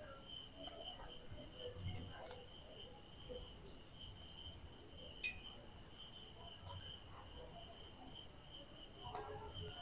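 Faint insect chirping: a short high pulse repeating about twice a second over a thin steady high trill, with a few faint soft knocks of the dough being cut underneath.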